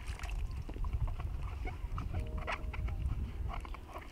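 Water trickling from a kettle spout over hands rubbing fruit and splashing into a metal basin, with many small splashes and a low rumble underneath. A short pitched call sounds about two seconds in.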